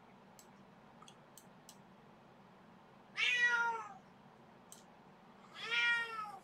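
Domestic cat meowing twice: two drawn-out calls, each sliding slightly down in pitch, about two and a half seconds apart.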